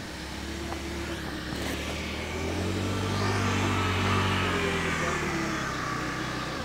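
A motor vehicle's engine passing by, its low drone growing louder to a peak about four seconds in and then fading away.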